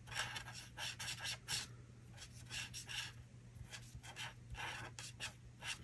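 Die-cut cardstock being handled and slid over a glass craft mat: faint, irregular scratchy rubs and light paper ticks.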